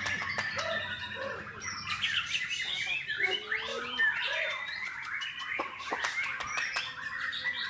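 White-rumped shama (murai batu) singing a fast, varied song of whistled notes and chirps, with sharp clicks mixed in.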